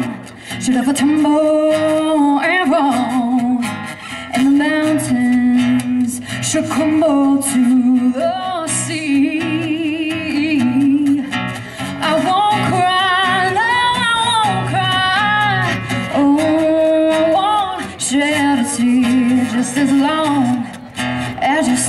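A woman singing a song live into a microphone, accompanied by a strummed acoustic guitar, with held notes that waver in vibrato.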